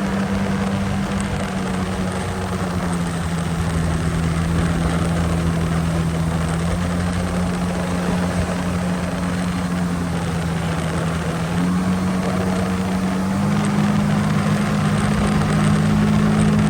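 Sea-Doo jet ski engine running under way at steady throttle, a loud even drone. Its note dips slightly about three seconds in, then rises in two steps near the end as the throttle is opened further.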